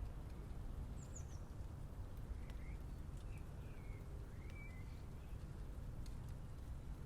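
Steady low rumble of city ambience with a few short bird chirps over it: one high chirp about a second in, then several more through the middle.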